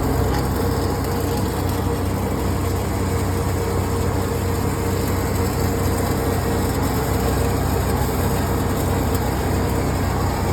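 An engine running steadily at a constant speed, a low droning hum that does not change.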